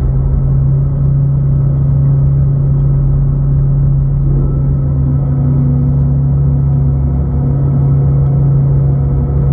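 Steady low hum of the research vessel's machinery running during a gillnet haul, picked up through a camera mounted on the hull.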